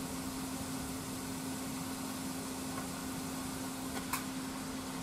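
Steady electrical hum of running kitchen equipment, with one faint click about four seconds in.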